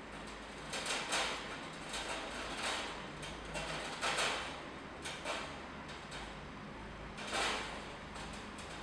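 Ferrets scrambling in a wire cage, their claws scraping and rattling on the wire in about five short, noisy bursts.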